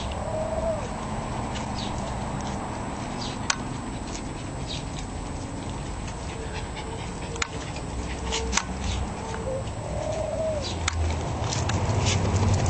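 Shih tzus playing, with two short whines, one just after the start and one about ten seconds in, fainter whimpers between them, and scattered sharp clicks.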